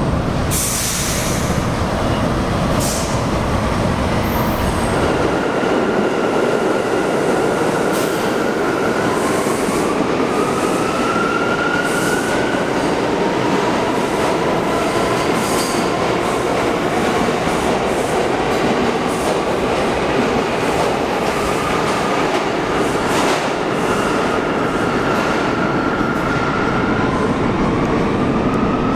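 New York City subway train running along the rails through a station, a steady rumble of wheels on track. High wheel squeal comes and goes over it and rises in pitch a few times, with occasional sharp clicks.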